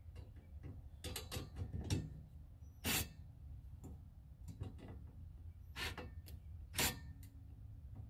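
Short trigger bursts of a cordless impact wrench tightening the glider's mounting bolts on the metal frame, with scattered mechanical clicks in between. The louder bursts come about three and seven seconds in.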